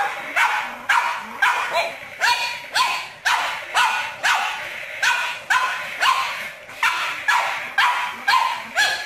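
Pug puppy barking over and over at a toy tank: short, sharp barks about two a second.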